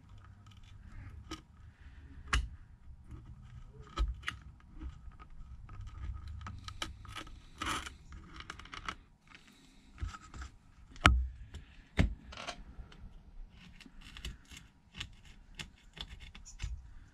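Small hand tools scraping and clicking against a phone's frame while leftover broken screen glass is cleared off it, with scattered sharp taps, the loudest about eleven seconds in.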